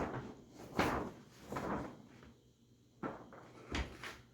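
A framed picture being handled and set on a mantel: several short knocks and scrapes, the loudest about a second in.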